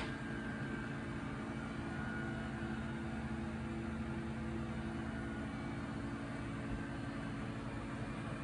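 A sharp click, then a steady mechanical hum with a hiss over it that holds level throughout.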